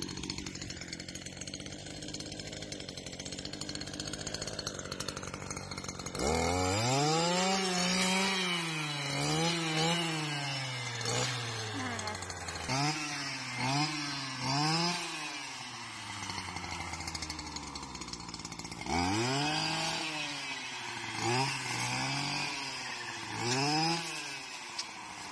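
Stihl brush cutter engine running at low speed, then opened up about six seconds in. It is revved again and again while cutting tall grass, the pitch climbing with each burst of throttle and sagging back as it cuts.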